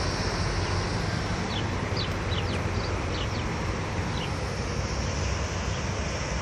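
Steady low rumble of a river passenger boat's engines and propeller wash as it churns the water moving off from the landing stage. A bird gives a run of short high chirps from about a second and a half to four seconds in.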